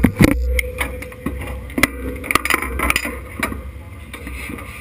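Knocks, clicks and clothing rustling close to the in-car camera as the driver climbs out of a sprint car's cockpit, the loudest thump right at the start and scattered knocks after.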